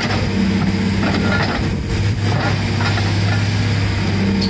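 Excavator-mounted hydraulic breaker hammering reinforced concrete, a continuous run of rapid blows over the excavator's engine.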